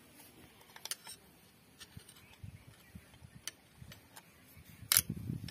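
Scattered light metallic clicks and taps of a tool and brake parts being handled inside a tractor's brake housing, with one sharper click about five seconds in.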